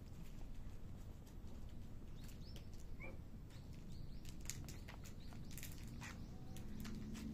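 A cat crunching dry kibble, a quick irregular run of crisp chewing clicks over a steady low background hiss.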